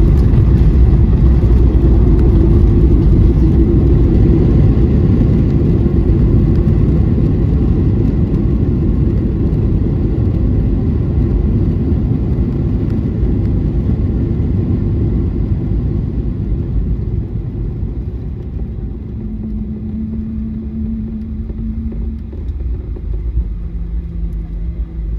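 Airliner cabin during the landing rollout: a loud rumble from the engines and the wheels on the runway, fading gradually as the plane slows. Near the end a low steady hum comes and goes.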